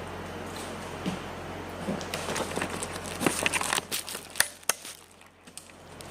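Crinkling and a string of sharp clicks, as of something plastic being handled, over a steady low electrical hum. The crinkling builds through the middle, with two loud clicks near its end.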